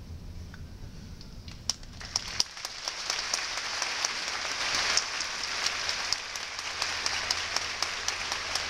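Audience applause in a large hall: a few scattered claps about two seconds in, then swelling into steady, sustained clapping from many hands.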